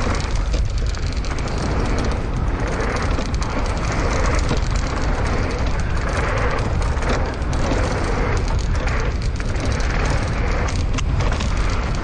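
Mountain bike riding down a bike-park trail: wind rushing over the microphone, with the steady crunch and rattle of tyres and bike over dirt and rocks.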